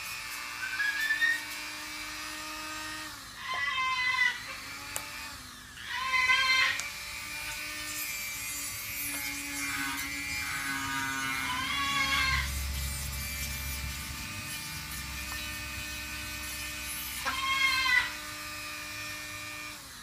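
Small Dremel-type rotary tool running steadily as it files a cockatoo's nails, with four short, pitched cockatoo calls spread through.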